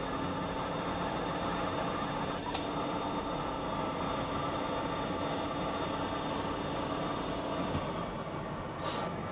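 Steady hum and hiss of machinery inside a Mir deep-sea submersible's cabin, with several steady tones. One tone stops about eight seconds in, and there are a few faint clicks.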